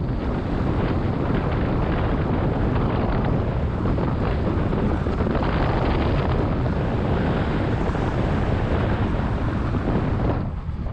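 Wind buffeting the microphone over the engine and road noise of a moving pickup-truck taxi, heard from its open rear bed. The rush is steady and eases briefly near the end.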